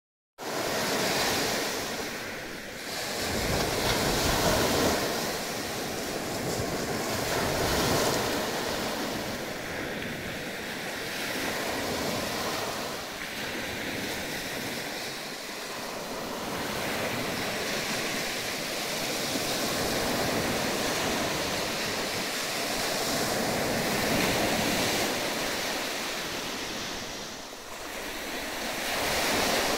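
Small Baltic Sea waves breaking and washing up onto a sand and pebble shore, the surf swelling and easing every few seconds.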